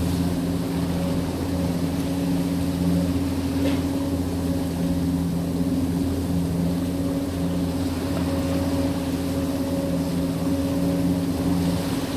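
A boat's engine running steadily with an even, low hum.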